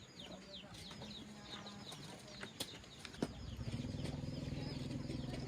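Chicks or small fowl peeping in quick, high, falling chirps, several a second. Just after three seconds in there is a sharp click, and a small motor starts up and runs with a steady hum.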